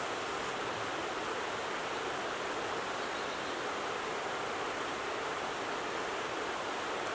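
A steady, even rushing noise with no breaks, like running water, carried under the closing credits.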